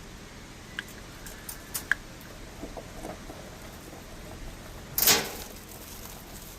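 A few light clicks and knocks, then one louder, brief clatter about five seconds in.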